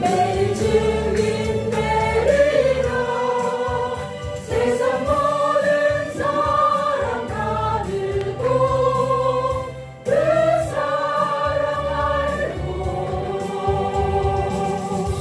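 Small church choir of mostly women singing a praise song together, holding long notes, with short pauses between phrases about four and ten seconds in.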